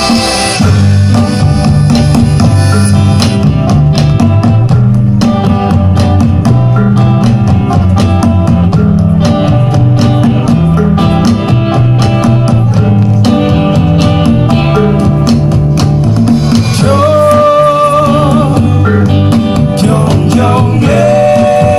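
A live band playing an ethnic-flavoured song: plucked guitar over a drum-kit beat, with a held, wavering melody line coming in during the second half.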